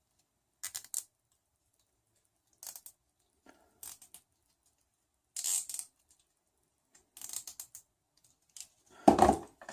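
Nylon zip ties being pulled through their ratchet heads: about half a dozen short, separate zipping rasps with quiet gaps between them. A louder clunk of parts being handled comes near the end.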